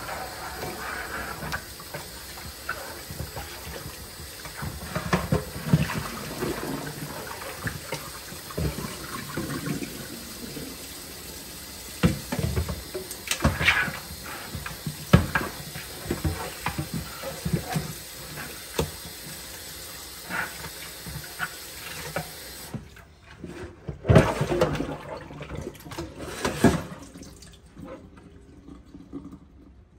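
Kitchen tap running into the sink while raw meat is rinsed under it, with scattered knocks and splashes. The water shuts off about three-quarters of the way through, and a few clunks follow.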